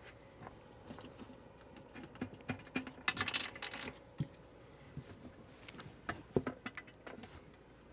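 Scattered light clicks and taps of plastic parts being handled, with a brief rustle about three seconds in, as a cushioned toilet seat's hinge pieces are fitted to the toilet bowl's mounting holes.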